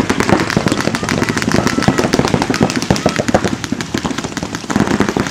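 Several paintball markers firing rapidly and overlapping, a dense, continuous stream of sharp pops.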